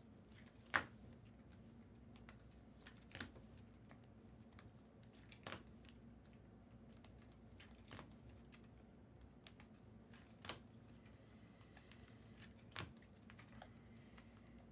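Faint, sparse light clicks and taps, about one every two seconds, from trading cards being handled on a table, over a low steady hum.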